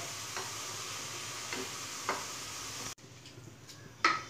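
Sliced onions and garlic sizzling steadily in hot oil in a karahi, fried to light brown, with a few light clicks. About three seconds in the sizzle cuts off abruptly to a much fainter hiss of the oil alone, and a sharp click comes near the end.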